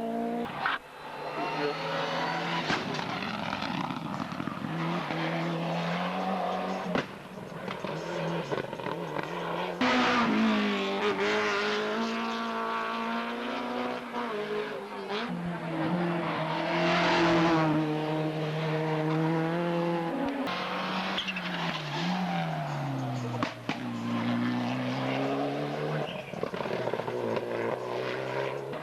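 Hillclimb race car engines revving hard, the pitch climbing and dropping again and again as the cars accelerate, shift and brake for corners, with a sudden louder stretch about ten seconds in.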